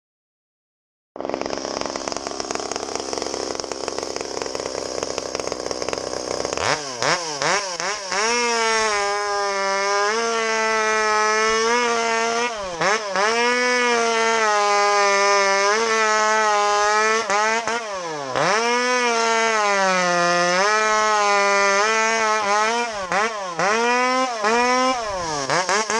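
Stihl MS200T two-stroke top-handle chainsaw, its carburettor freshly retuned, starting up about a second in and running, then revved to full throttle about seven seconds in and cutting through logs. Its pitch sags under load and climbs again between cuts, with a brief drop to idle partway through.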